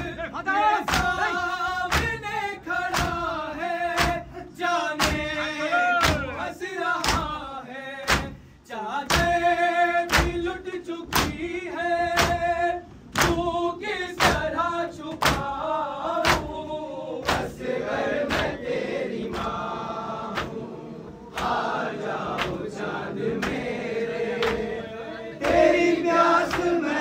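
A group of mourners chanting a noha in chorus, kept in time by sharp, regular strikes of matam (hands beating on chests), roughly one every three-quarters of a second. The strikes are thinner for a stretch after the middle while the chanting carries on.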